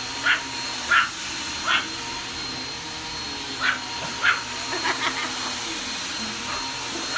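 Vacuum cleaner running steadily with a whine, while a dog barks at it: three barks about two-thirds of a second apart, a pause of about two seconds, then two more barks and a few quieter yips, and one more bark at the very end.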